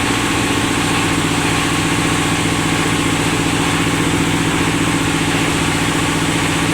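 Engine-driven oil palm loose-fruit thresher running steadily, a constant engine hum with a fast low pulse and a steady mechanical whir.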